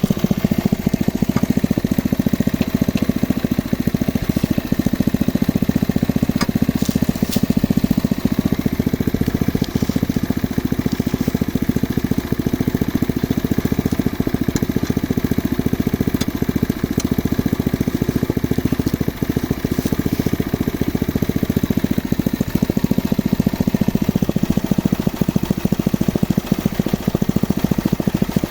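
Engine of a geological exploration drilling rig running steadily, a fast even chugging, with a couple of faint clicks about six and seven seconds in.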